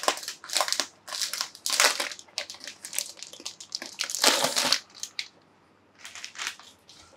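Packaging crinkling and rustling in quick irregular bursts as a stack of cardboard board-game tiles is unpacked; it dies down about five seconds in, with a few faint rustles after.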